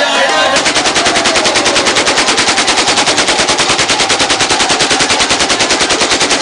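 Long burst of automatic rifle fire into the air: rapid, even shots about ten a second, starting about half a second in as the music cuts off, and running on without a break.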